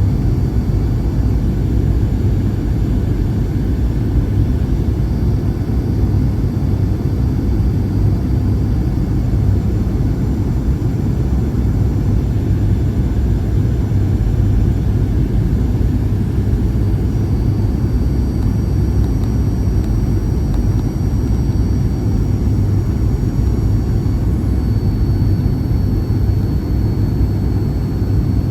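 Steady low rumble inside the cabin of a Boeing 737-800, its CFM56 engines and the airflow running evenly, with a few faint high steady tones above.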